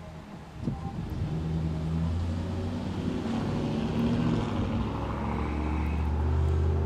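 A motor vehicle engine running, coming up in level about half a second in and then holding a low, steady sound.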